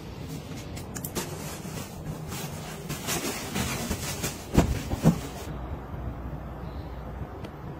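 Handling of a pillow and its fabric cover on a bed: rustling with scattered light clicks, and two thumps half a second apart about four and a half seconds in. It is quieter after that.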